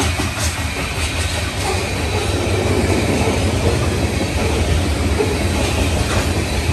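A train passing on the tracks: steel wheels rolling on the rails with a steady low rumble and occasional sharp clicks.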